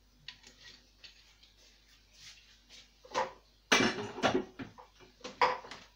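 An olive oil bottle and a plastic mixing bowl being handled: light clicks, then a cluster of louder knocks and clatters a little past halfway and another sharp knock near the end.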